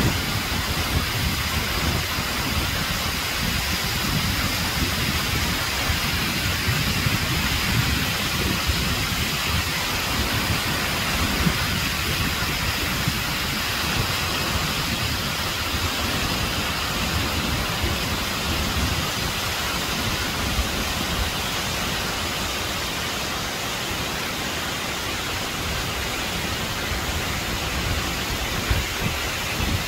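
Waterfall: water and spray falling onto rock in a steady, unbroken rush.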